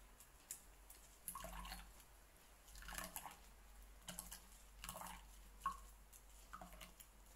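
Faint wet squishing of blended celery pulp pressed and scraped with a silicone spatula in a plastic strainer, with juice dripping and running into a mug. The strokes come one at a time, every second or so.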